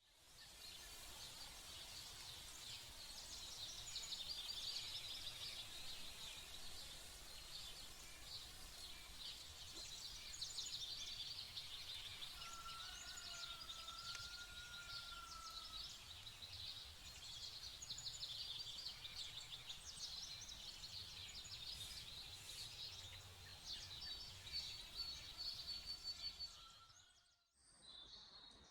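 Outdoor rural ambience of many birds chirping and twittering together in a dense, continuous chorus, with a faint long tone in the middle. The sound cuts off suddenly near the end.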